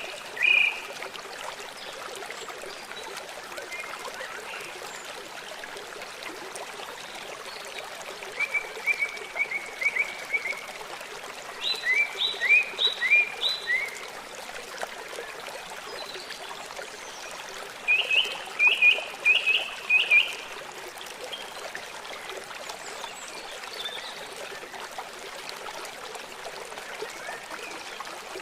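Songbirds chirping in a few short, quick runs of repeated notes, a few seconds apart, over the steady rush of running water.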